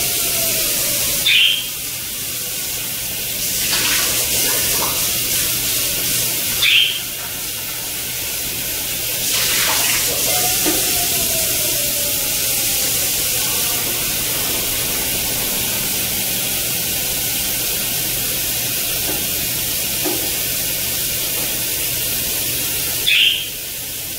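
Kitchen sink faucet running steadily, with three brief louder splashes at about one, seven and twenty-three seconds in.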